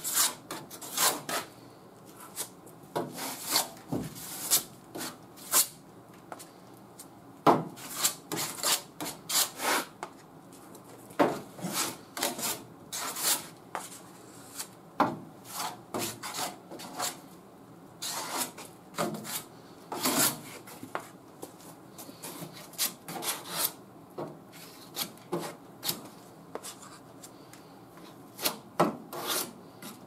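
A hand-held abrasive tool scraping in short, irregular strokes over hardened body filler on a steel quarter-panel patch, with brief pauses between runs of strokes.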